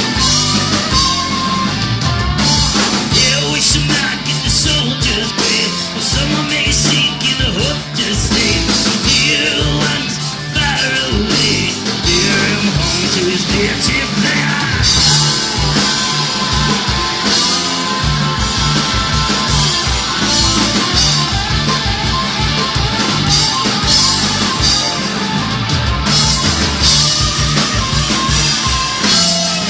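Live rock band playing, electric guitars over a steady drum kit beat.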